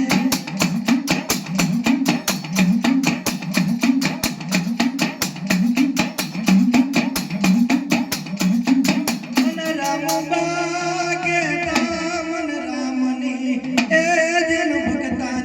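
Live Gujarati dakla devotional music: fast, even strokes on the dakla drum over a repeating low melodic figure. About ten seconds in the drumming stops, and a wavering sung line carries on over a held low note.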